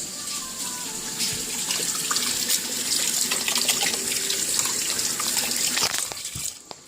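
Water running from a tap into a sink, a steady splashing hiss that stops abruptly near the end.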